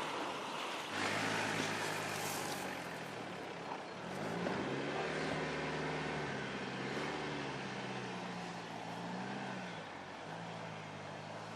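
Mercedes GLC 300d's four-cylinder diesel engine running as the car drives, its engine note rising and falling with the throttle about halfway through, over steady tyre and wind noise.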